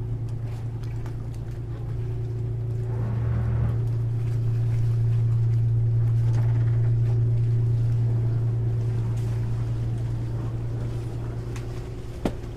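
A sailing yacht's inboard engine running steadily at low revs while the boat motors slowly through the marina, with a short knock near the end.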